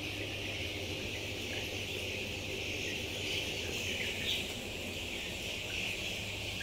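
Steady massed chatter of many caged brown hens, with a few sharper chirps about four seconds in, over a steady low hum.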